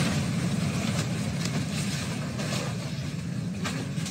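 Rumbling roar of a mudslide's debris flow as mud, water and wreckage rush downhill, with a few sharp knocks of debris striking.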